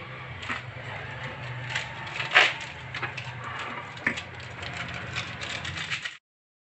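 Scattered light knocks and clicks of a glass blender jar and kitchen items being handled on a counter, over a low steady hum. The sound cuts off abruptly about six seconds in.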